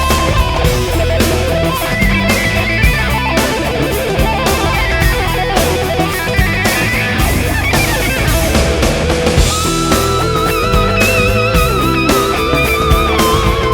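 Rock music with electric guitar and a drum kit. About two-thirds of the way through, a held, wavering lead line comes in over it.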